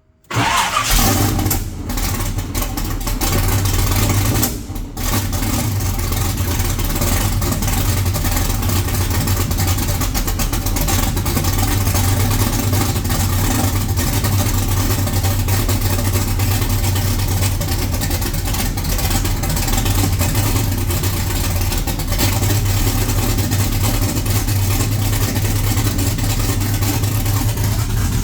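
Carbureted Camaro engine firing up, dipping briefly twice in the first few seconds, then settling into a steady, loud idle with a deep rumble.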